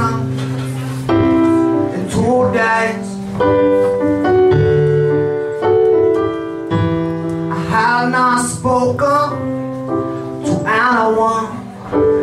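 Live song: a keyboard plays held chords that change about once a second while a voice sings wavering phrases over them.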